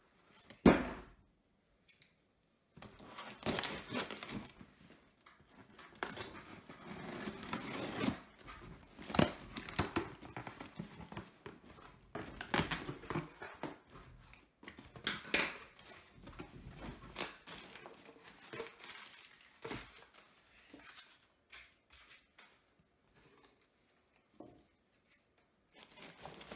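A loud thump less than a second in, then a cardboard box being opened and hands rummaging through crumpled newspaper and foam packing peanuts: irregular rustling, crinkling and crackling with many short sharp clicks.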